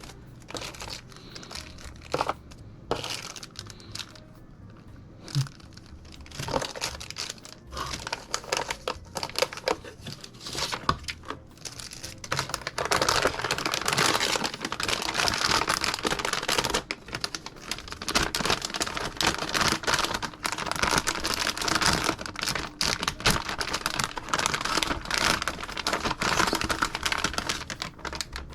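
A motherboard box and its plastic packaging being opened and handled: scattered knocks and clicks at first, then continuous plastic crinkling from about halfway through.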